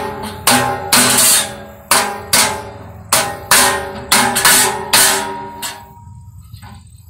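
A claw hammer driving a 4x4 wood block against the rim of a 16-gallon steel drum, about a dozen uneven blows, with the drum ringing after each one; the strikes bend the drum's opening toward a rectangle. The hammering stops about six seconds in.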